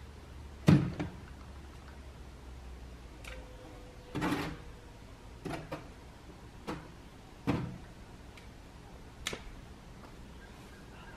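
Several separate knocks and thumps at irregular intervals, the loudest a sharp one about a second in, over a faint steady low rumble.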